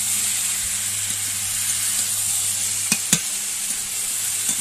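Chunks of pumpkin, potato and drumstick sizzling in hot oil in an aluminium kadai as they are stirred with a spatula, in the final stage of sautéing with spices. The spatula knocks twice against the pan about three seconds in.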